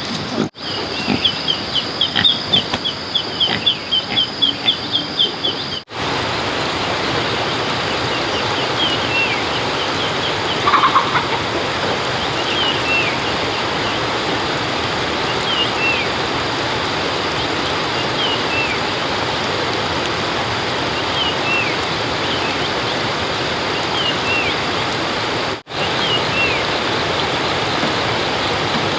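Small birds chirping over a steady background hiss. The chirps come thick and fast for the first few seconds, then as scattered short falling chirps. The sound cuts out abruptly for a moment three times.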